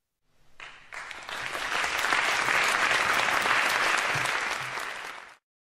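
Studio audience applause, building up over the first second or so, holding steady, and cutting off abruptly near the end.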